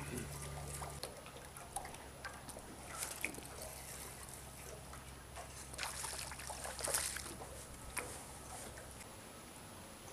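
Water splashing and trickling as a hooked bass is fought and brought in to a kayak. The splashes are irregular and are loudest and thickest about six to seven and a half seconds in.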